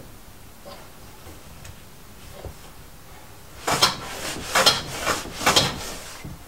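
Lie-Nielsen No.51 shooting board plane pushed along a shooting board, its skewed blade taking fine shavings off the end grain of an ash board: about four quick planing strokes, starting after a quiet few seconds with a couple of light knocks.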